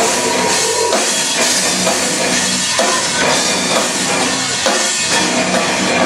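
Rock band playing live: drum kit and electric guitars, loud and dense.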